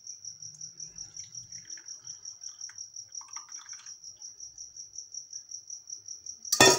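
An insect chirping steadily, a high-pitched pulsing trill at about seven pulses a second. Near the end a single sudden loud clatter cuts across it.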